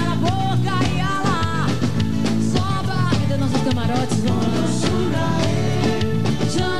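Live axé music: a woman's lead vocal over a full band with a driving, steady beat.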